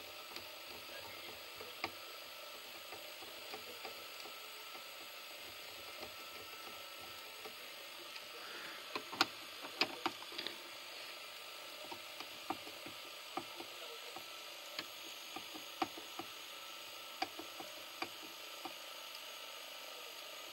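Tape transport of an opened LG MG-24 VHS VCR running with a tape playing: a faint steady whir, with scattered small clicks, several of them close together about nine to ten seconds in.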